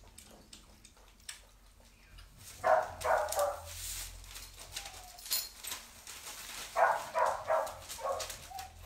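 A dog barking in two short bouts of three or four barks each, a few seconds apart.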